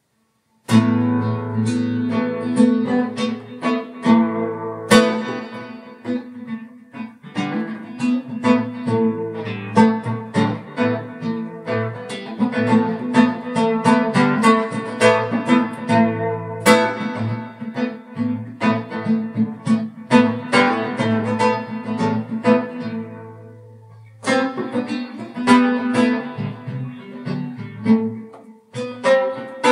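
Guitar music: quick picked notes over a low sustained bass note, starting about a second in, thinning out and nearly dying away a few seconds before the end, then picking up again.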